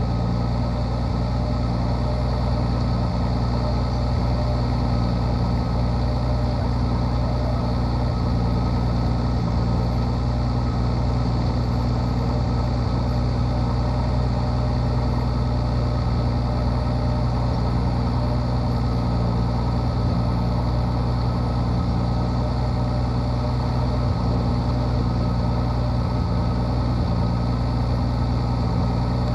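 Race plane's piston engine idling steadily on the ground, heard from inside the closed cockpit.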